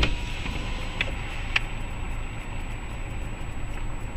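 Steady low hum inside a stopped car with its engine idling, with a few light clicks in the first two seconds.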